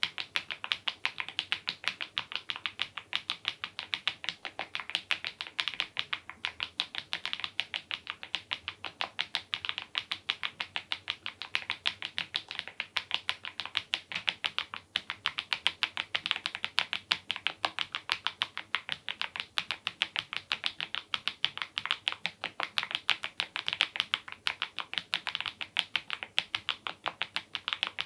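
Mechanical keyboard typed on steadily, a quick run of keystroke clacks several a second, from HMX Cheese switches under Keytok Godzilla keycaps in the smile profile (a Cherry-style profile rounded off at the bottom).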